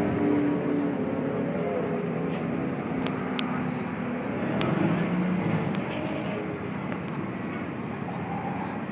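A Honda Civic hatchback's engine running at idle, a steady rumble with a brief swell in level about five seconds in.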